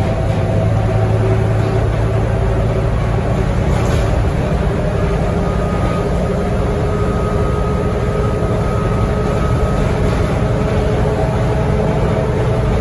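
Cabin noise of a Scania K230UB single-deck city bus under way: the diesel engine drones steadily under a wash of tyre noise on a wet road. A faint high whine comes in about five seconds in and fades a few seconds later.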